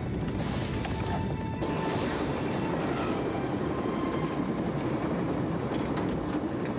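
Film soundtrack of an earthquake: a continuous deep rumble with rattling and crashing, under a music score.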